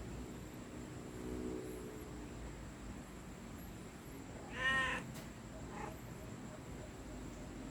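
A domestic cat meowing once, a short meow that rises and falls in pitch, about four and a half seconds in. A fainter, lower call comes earlier, about a second and a half in.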